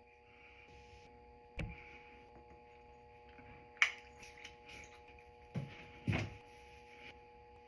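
Faint breathing over a steady hum, with a few soft thumps and one sharp click about four seconds in.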